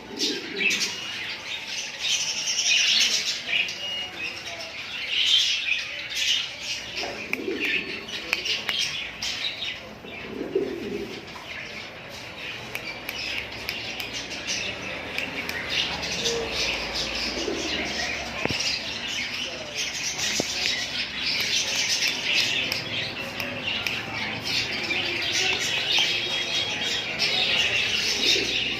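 Many small pet parrots chirping and chattering continuously, a dense overlapping mass of high, quick calls.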